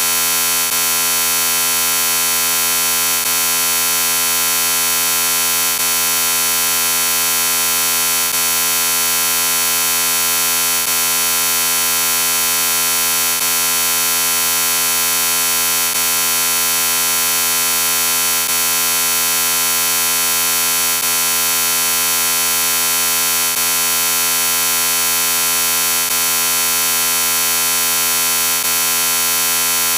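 Heavily processed 'Chorded Robot' and 'G Major' effect sound: a loud, steady, buzzing electronic chord of many stacked pitches that does not change, with a faint regular hitch about every two and a half seconds.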